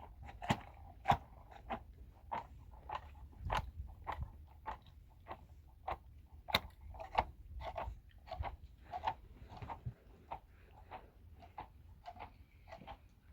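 A steady run of sharp knocks or taps, a little under two a second and fairly even in strength.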